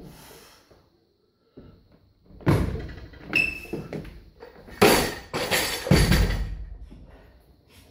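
Loaded barbell with bumper plates: feet stamp and plates rattle as the jerk is driven overhead about two and a half seconds in. Then the bar is dropped from overhead onto the floor about five seconds in and hits again a second later as it bounces.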